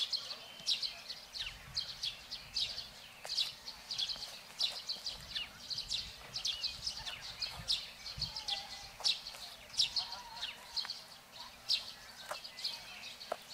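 Small birds chirping: a steady run of short, high chirps, several a second.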